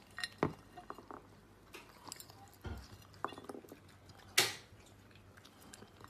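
Young raccoon chewing pomegranate seeds, with scattered small clicks as its claws touch the ceramic plate and a short, louder rustle about four seconds in.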